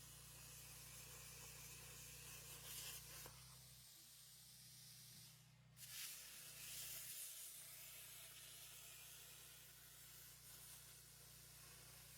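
CNC plasma table cutting: the plasma torch hissing steadily over a low electrical hum. The sound drops out for a moment a little before halfway through, then carries on.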